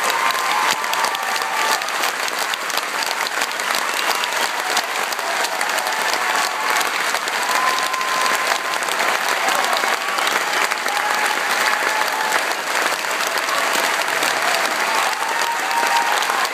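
A large theatre audience and cast applauding steadily, a dense, continuous clapping.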